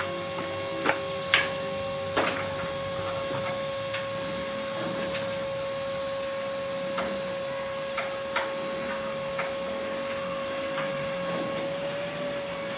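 Light metal knocks and clicks as the steel smoker's folding side panel is handled, the sharpest two in the first couple of seconds and a few more later. A steady hum underneath throughout.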